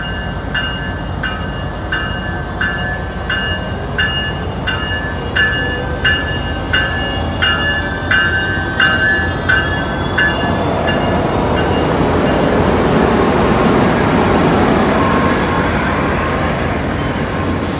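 A passenger train led by a Siemens Charger diesel locomotive rolls slowly past at close range. The locomotive's bell rings steadily, about one and a half strikes a second, and stops about ten seconds in. Then the rumble and wheel noise of the passing bilevel coaches swells up.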